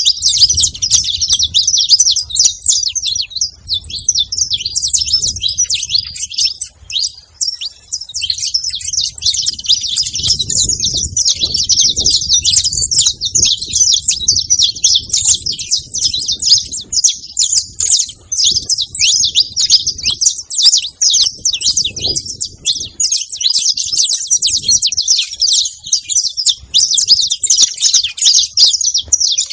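A flock of saffron finches chirping together in a dense, continuous chatter of many overlapping high, short calls.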